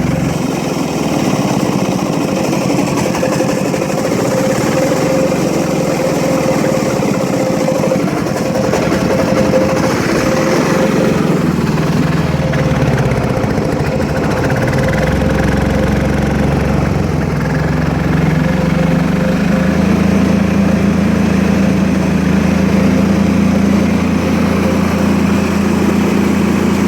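Diesel generator engine running after a hard start, a steady high whine over it at first; about halfway through its pitch rises and then holds steady.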